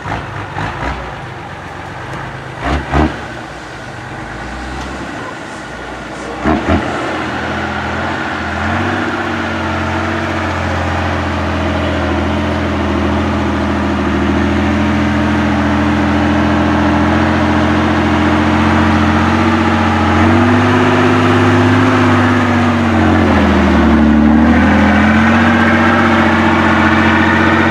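Off-road trial truck's engine working under load, with three loud knocks in the first seven seconds. From about eight seconds the engine holds steady revs, sags briefly near the end and picks up again.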